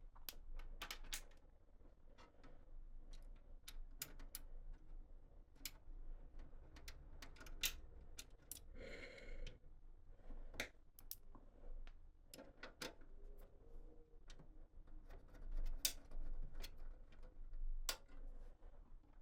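Irregular light clicks and taps of computer hardware being handled, with a brief rustle about nine seconds in.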